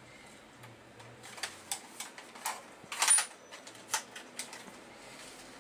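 Scattered sharp plastic clicks and clacks as the ABS body and stock of a G36 airsoft replica are handled and adjusted, about a dozen over four seconds, the loudest about three seconds in.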